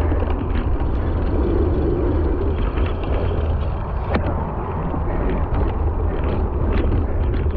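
Cyclocross bike riding over a leaf-covered dirt trail: a steady heavy rumble of wind and jolting on the mounted microphone, with tyre noise and light rattles from the bike, and one sharp click about four seconds in.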